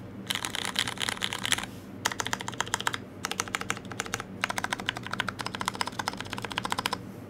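Typing on a custom Alais R2 mechanical keyboard with a carbon fiber plate, Hyperglide Brown tactile switches on extreme slow springs, and GMK keycaps. The keys go down in about four quick runs of clicks with short pauses between them.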